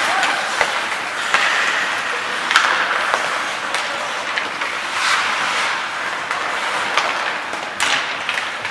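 Ice hockey play in a rink: a steady scraping hiss of skates on the ice, with sharp clacks of sticks and puck striking now and then.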